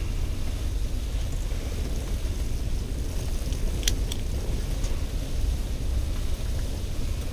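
A handheld mechanical tally counter clicked twice in quick succession about four seconds in, over a steady low rumble.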